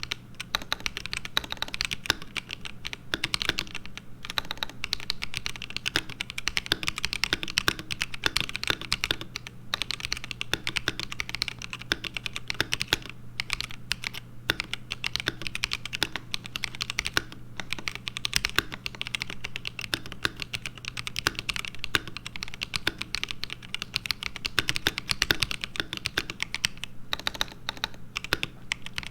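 Typing on an ASUS ROG Azoth mechanical keyboard with stock, factory-lubed ROG NX Red linear switches: a fast, continuous run of keystrokes with a few brief pauses.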